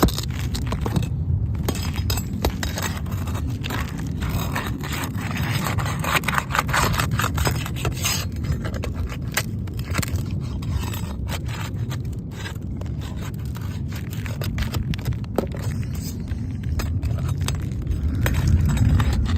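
Irregular scraping and crackling on asphalt roof shingles, as of shoes shuffling across the roof, over a steady low rumble.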